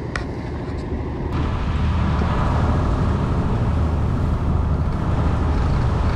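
A large outrigger boat's engine running steadily under way, a low drone with a rush of wind and water over it. It becomes louder and fuller about a second and a half in.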